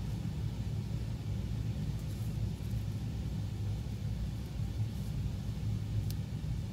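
Steady low rumbling hum, with a faint short tick about six seconds in.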